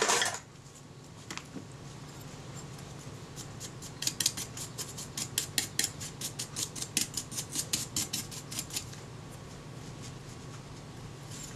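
A brush scrubbing dust off a camera's metal shutter plate, in a run of short, quick, scratchy strokes, about five a second, from about three and a half seconds in until about nine seconds in.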